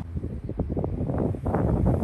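Wind buffeting the microphone: an uneven, gusting rumble with crackle that swells and is strongest near the end.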